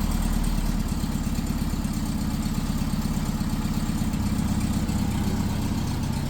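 Engine idling steadily, running on freshly rebuilt Solex P40-II carburetors.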